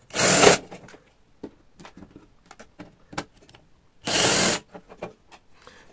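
Cordless drill-driver run in two short bursts about four seconds apart, backing screws out of an inverter welder's case, with faint clicks and handling knocks in between.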